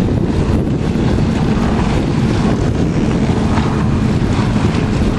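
Steady wind rumbling on the microphone over the wash of choppy water, aboard a small sailboat under sail.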